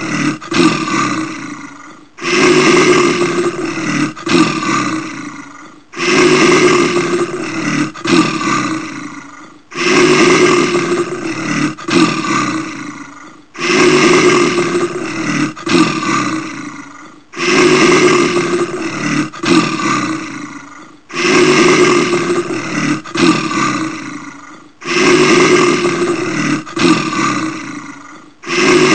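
Brown bear roaring: the same rough, loud roar repeats about every four seconds, seven times over, each starting suddenly, breaking up partway through and fading away.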